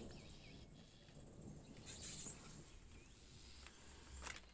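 A bird gives a short run of quick chirps at the start and one more about three seconds in, over the faint low rumble of distant thunder dying away. A brief hiss comes about two seconds in and a sharp tap near the end.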